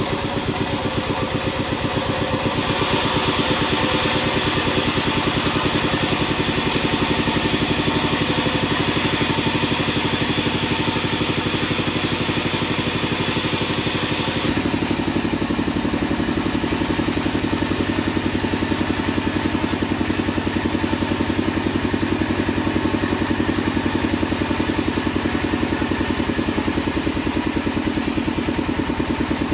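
Engine-driven 48-inch band saw mill running steadily. A higher hiss comes in about three seconds in and stops about halfway, after which a lower hum is stronger.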